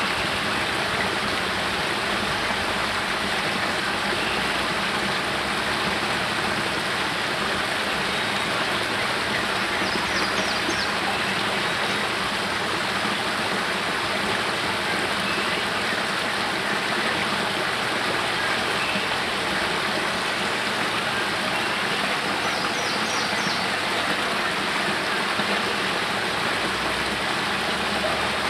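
Small spring-fed cascade of water pouring out of a cave and over rocks into a pool, making a steady, even rush and splash. Two brief, faint high chirps come through, about a third of the way in and again about three-quarters through.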